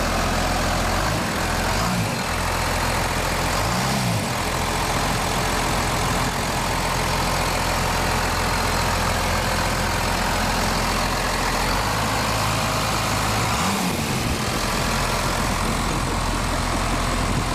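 5.9-litre 12-valve Cummins inline-six diesel running steadily just after being started, following fresh fuel filters and an oil change.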